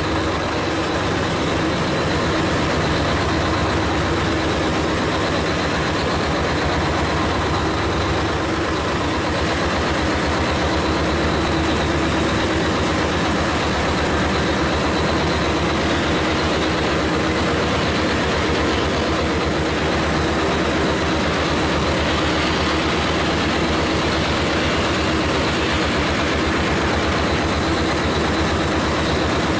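Steady drone of heavy mining machinery: a Cat rope shovel working over large haul trucks whose diesel engines are idling, with no distinct bangs.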